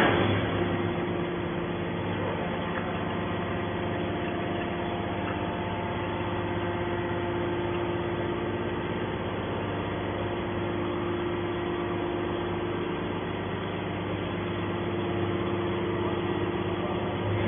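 Hydraulic scrap iron baler's power unit running with a steady hum.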